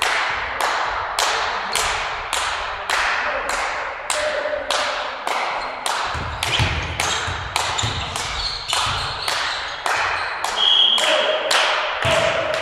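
Rhythmic hand clapping, about three sharp claps a second and speeding up slightly, echoing in a large sports hall.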